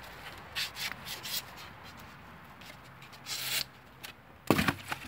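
Carbon arrow and polystyrene foam block being handled: several short rubbing and scraping sounds, a longer scrape about three and a half seconds in, and a sharp knock near the end.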